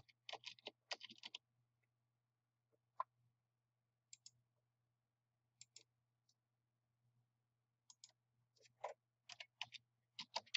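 Faint computer keyboard and mouse clicks: a quick run of keystrokes about half a second in, a few single and paired clicks after that, and another run of keystrokes near the end, over a faint steady low hum.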